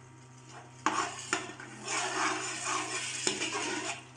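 Steel spoon stirring fried masala paste with freshly added water in a metal pot, for the curry gravy. After a quiet first second the spoon clinks against the pot a few times, then scrapes and stirs unevenly.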